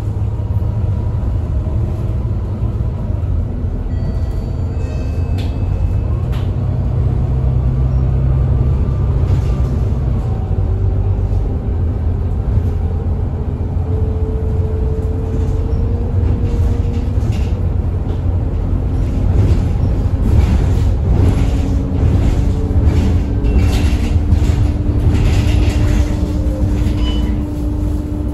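Volvo B9TL double-decker bus's Volvo D9B six-cylinder diesel engine and ZF EcoLife automatic gearbox running as the bus drives: a steady low rumble with tones that rise and fall with engine speed. Clicks and rattles come in over the second half.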